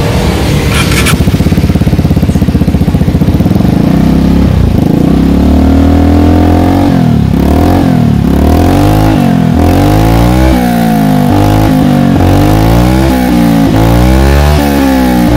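Vespa scooter's single-cylinder four-stroke engine running through an R9 New Alpha aftermarket exhaust with its dB killer fitted. It idles steadily for the first few seconds, then is revved in repeated blips, the pitch rising and falling about once a second.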